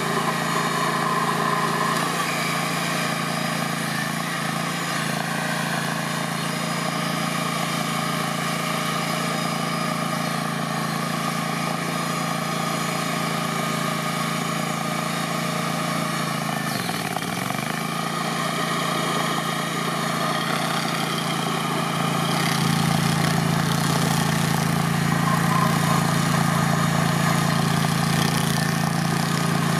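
Vermeer SC30TX tracked stump grinder running steadily at working speed, its toothed cutter wheel grinding into a tree stump. The engine pitch dips briefly about 17 seconds in and recovers, and the sound grows louder from about 22 seconds in.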